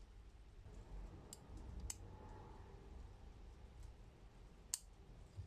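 Steel slip-joint pliers worked open in the hand: three short sharp metal clicks from the jaws and pivot, the last and loudest near the end, over a low rumble of handling.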